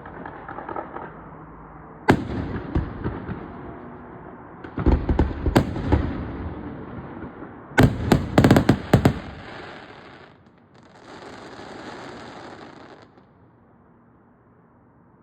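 Fireworks display: aerial shells bursting with loud bangs and crackle, a rapid volley of bangs about eight seconds in, then the noise dies away.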